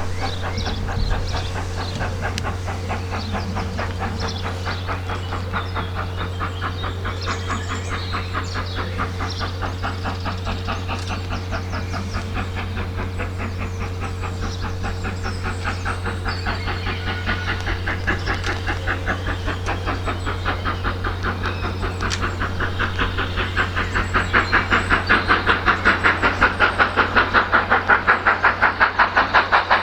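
Steam locomotive 70000 Britannia, a two-cylinder BR Standard Class 7 Pacific, working a train away from a station with a steady run of exhaust beats, about three a second, over a steady low hum. The beats grow clearly louder over the last several seconds as the engine draws closer.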